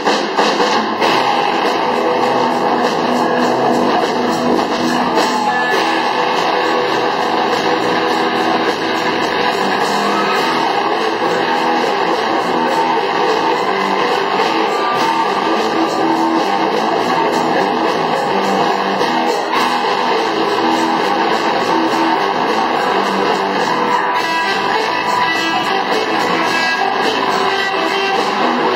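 A rock band playing live, led by strummed electric guitar with bass, loud and steady throughout.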